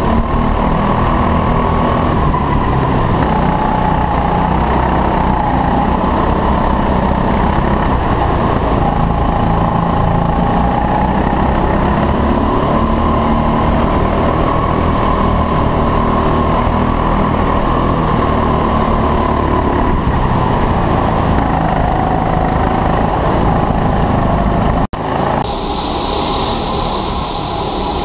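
A 6.5 hp rental kart's engine running at race pace, heard onboard, its pitch rising and falling with the throttle. About three seconds before the end it cuts off suddenly and gives way to a steadier high hiss and whine of karts running past.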